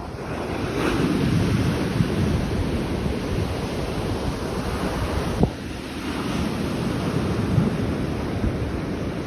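Wind buffeting the microphone in gusts over the steady wash of surf on a beach, with one brief sharp click about midway.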